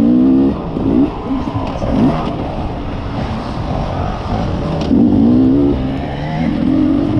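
Beta enduro motorcycle engine revving up and dropping back again and again as the bike is ridden hard over dirt jumps and turns, with a rough rumble from the ride.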